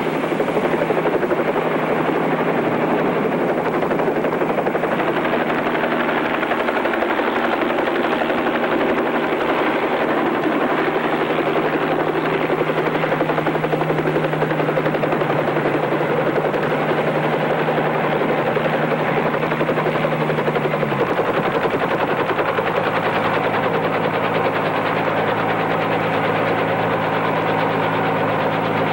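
Bell 47 helicopter's piston engine and rotor running steadily and loud as it sets down at the camp. About 21 seconds in, the engine note drops as it is throttled back toward idle.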